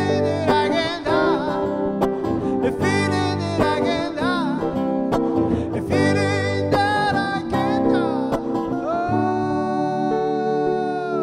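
Male singer performing a song live, accompanied by electric guitar and keyboard, ending on one long held note over sustained chords.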